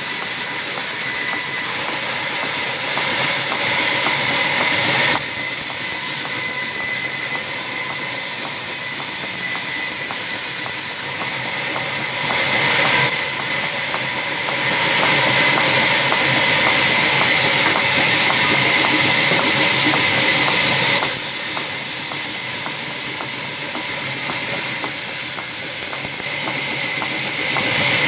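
Sawmill band saw ripping lengthwise through a log on its carriage: a loud, steady hiss of the blade in the wood over the running machine, with a thin steady whine, rising and falling in strength a few times as the cut goes on.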